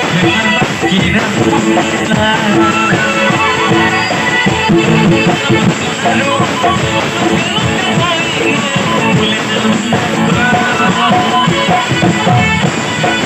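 Live band music at a stage show: a man singing into a microphone over drums and keyboard, loud and continuous.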